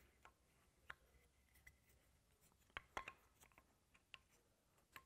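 Faint clicks and light rubbing of spacer blocks being handled and pressed into place around a sprung riser, with a couple of sharper clicks about three seconds in.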